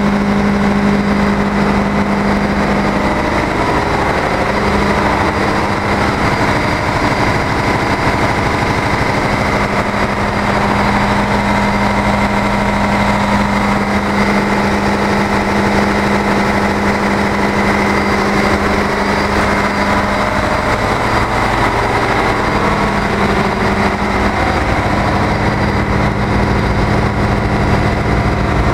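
Ship's engine room machinery running: a loud, steady, unbroken mechanical din with a strong steady hum, which fades about three quarters of the way through as a deeper hum comes up.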